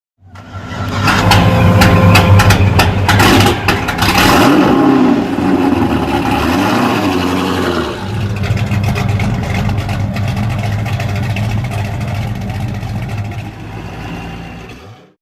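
Car engine starting and revving, with sharp clicks and rattles over the first few seconds, then running steadily until it fades out.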